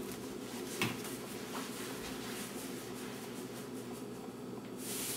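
Steady low hum of kitchen room tone, with a single sharp clink about a second in and a short hiss near the end.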